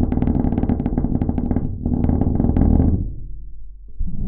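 Body metal of an old rusted truck being played by hand, picked up through a LOM GeoFon geophone in contact with it. A fast rattling run of strikes over a low, ringing drone breaks off about three seconds in, leaving a faint steady hum, and starts again near the end.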